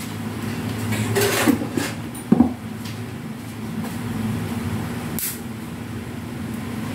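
Rustling and a sharp click from wires and multimeter test leads being handled at a refrigerator's wiring, over a steady low hum. The click comes about two seconds in, and there is a short hiss a few seconds later.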